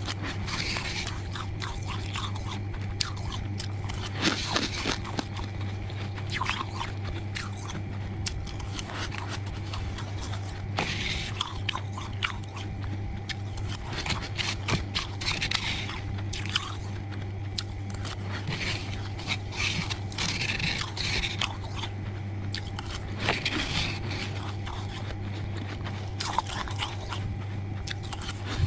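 Soft freezer frost being bitten and chewed, crunching irregularly throughout, over a steady low hum.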